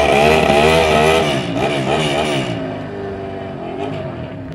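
Stunt motorcycle engine revving hard, its pitch swinging rapidly up and down as the throttle is worked, with a rushing hiss from the spinning rear tyre laying down smoke. The hiss cuts off about two and a half seconds in, and the revving eases to a lower, steadier running after that.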